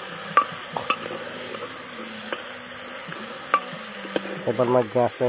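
Metal ladle stirring a pot of potato and taro curry over a wood fire, clinking sharply against the metal pot a handful of times over a steady sizzle.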